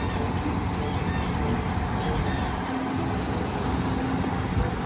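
Heavy dump truck's engine running steadily while its hydraulic hoist raises the tipper body.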